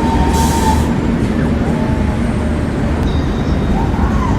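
Funfair ambience: a steady, loud low rumble of ride machinery and generators, with a short burst of hiss about half a second in and faint distant voices.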